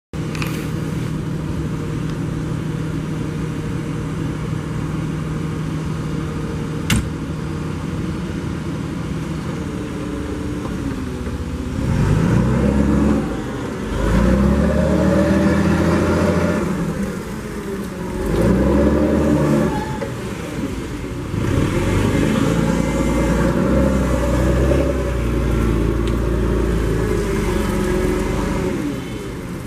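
2007 Cat GP50K forklift's LPG engine idling steadily, with a single sharp click partway through. In the second half it is revved up several times, the pitch rising and falling, with short drops back toward idle between revs.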